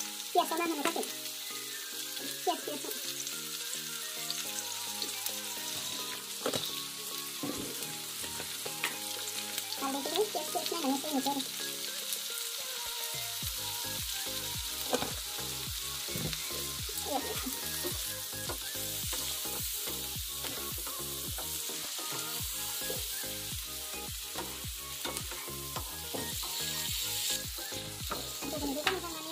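Chicken pieces and chopped red onion sizzling in oil in a nonstick frying pan, a steady hiss throughout. From about halfway through, a spatula stirs and scrapes the pan, making frequent short scraping clicks.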